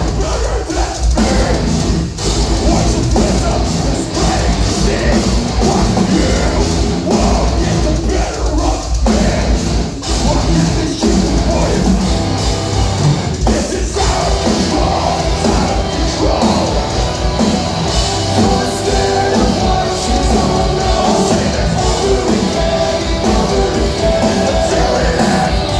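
Metalcore band playing live at full volume, with distorted guitars, drums and vocals, recorded from inside the crowd.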